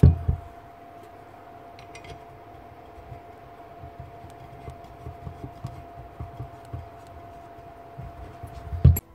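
Aluminium motor housing parts of a Makita 1125 planer being handled and pressed together on a concrete bench. There are two heavy knocks at the start and another just before the end, with soft knocks and rubbing between, over a faint steady hum.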